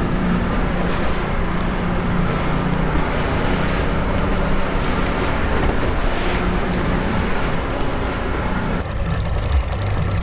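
Boat's outboard motor running at trolling speed, with wind on the microphone and water rushing along the hull. About nine seconds in, the engine note drops to a lower hum.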